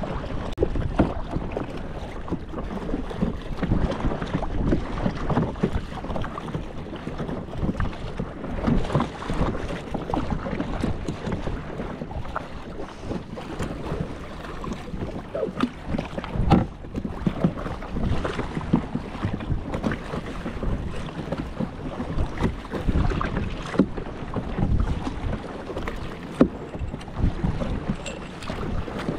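Kayak paddling: paddle blades dipping and splashing in lagoon water at an uneven pace, with wind buffeting the microphone.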